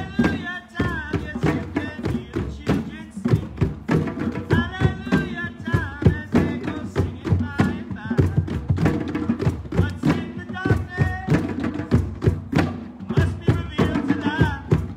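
Drum circle: several hand drums played together in a steady, driving rhythm, with voices singing or calling over the drumming.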